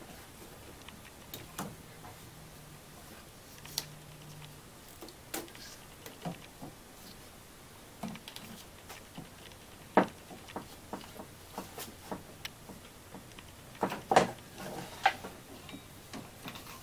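Irregular light clicks and knocks as a ribbed serpentine drive belt is worked off an alternator pulley by hand. The sharpest knock comes about ten seconds in, with a quick cluster a few seconds later.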